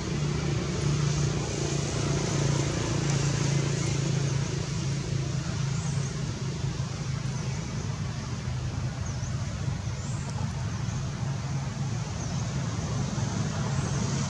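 A steady low droning hum over a constant hiss, unchanging throughout, with a few faint high chirps.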